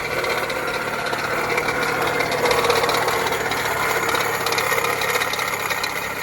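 Chrysler 200's engine idling just after starting, with a steady harsh rattling noise from its failing alternator.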